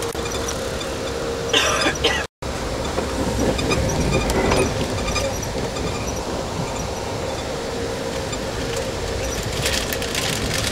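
Steady rumble and hiss of a moving Amtrak double-decker passenger train, heard from inside the car, with a faint steady hum. There is a brief rustle about a second and a half in, followed by a momentary gap in the sound.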